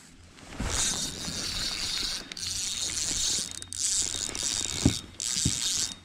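Spinning reel being cranked as line is reeled in, its gears whirring in runs of a second or two with short pauses, with a few dull knocks.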